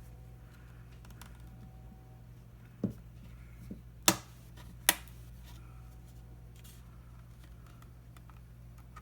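Sharp clicks and taps of a spudger prying the plastic tablet case apart, with two louder snaps about four and five seconds in, over a low steady hum.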